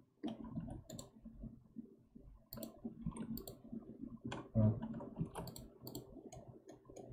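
Computer mouse buttons and keyboard keys clicking at an irregular pace while working in a program, with a single dull low thump about four and a half seconds in.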